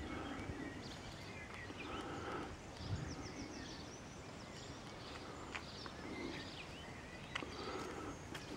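Small birds chirping, with short high twitters throughout and a rapid trill about three seconds in, over faint outdoor background noise and a few light clicks.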